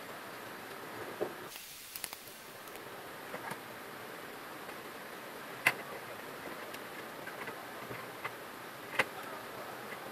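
A steady faint hum with a handful of sharp clicks and light knocks. The loudest come a little past halfway and near the end.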